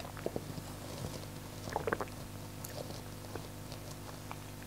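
Small mouth sounds of a man tasting a mouthful of beer: a swallow and a few lip smacks and clicks, over a low steady hum.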